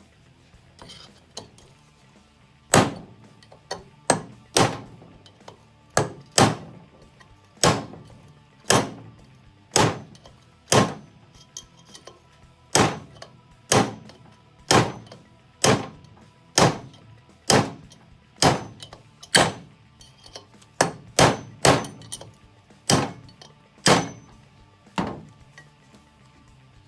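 Ball-peen hammer striking a steel drift punch to drive an old wheel bearing race out of a Willys brake drum hub. Some two dozen sharp metallic strikes, about one a second, each ringing briefly, starting a few seconds in.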